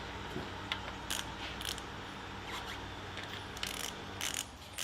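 Ratchet wrench and socket tools clicking and clinking on metal: scattered, irregular sharp clicks over a steady low hum.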